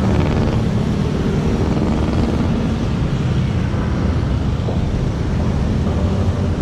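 Steady rumble of city street traffic, motorcycles and cars, mixed with wind buffeting the microphone as the bike rolls along.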